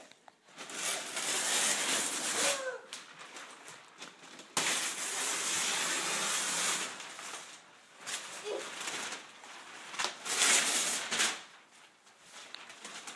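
Gift-wrapping paper being torn and ripped off a large box, in three main bursts of tearing and rustling with quieter pauses between.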